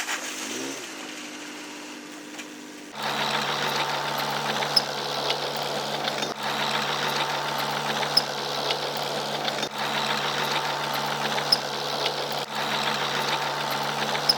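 Komatsu D20P bulldozer's diesel engine running with a steady clattering note. For the first three seconds it is quieter and its pitch rises and falls; then it abruptly becomes louder and holds steady.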